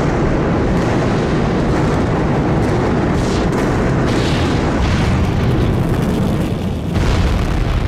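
Bombing-raid sound effect: a loud, continuous rumbling roar of explosions, heaviest in the low end, that cuts off at the end.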